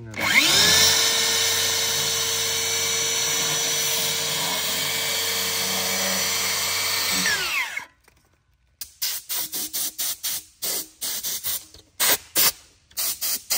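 DeWalt FlexVolt 60V cordless circular saw spinning up and running steadily through a foam insulation board, then winding down about halfway through. A quick run of short scratchy strokes follows.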